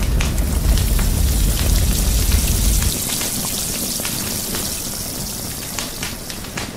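Wood fire crackling with a low rumble that stops about three seconds in, then hot oil sizzling and crackling as chicken deep-fries in a wok, slowly fading.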